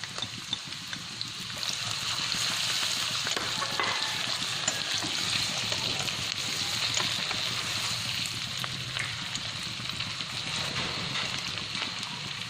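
Sliced shallots, ginger and minced garlic sizzling in hot oil in a frying pan as they fry until fragrant. A steady hiss that grows a little louder about two seconds in.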